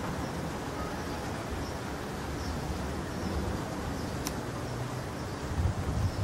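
Steady outdoor hiss with low gusts of wind buffeting the microphone and faint high chirps repeating about twice a second. A single sharp click comes about four seconds in.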